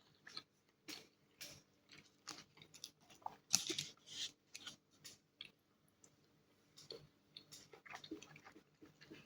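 Close-up mouth sounds of someone chewing soft-boiled eggs: irregular wet smacks and small clicks, with a busier run of them a few seconds in.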